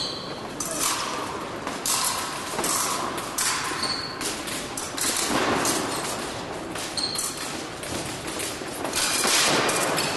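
Fencers' footwork on an épée piste: an irregular run of thuds and sharp knocks as the feet stamp and land during the bout.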